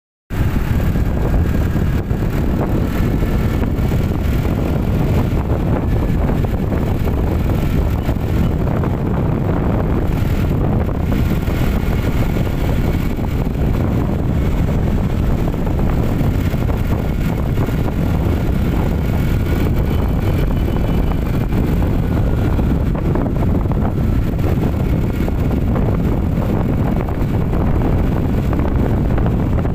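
Wind buffeting the microphone on a moving vehicle, a steady rumbling noise, with a faint wavering whine underneath.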